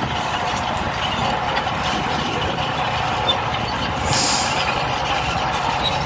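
Bulldozer and motor grader engines running steadily as the machines level the roadbed, with a brief hiss about four seconds in.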